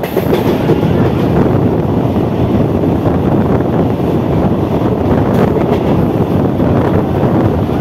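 Three-phase MEMU electric train running at speed, its steady rumble mixed with wind rushing over the microphone held out at an open door or window.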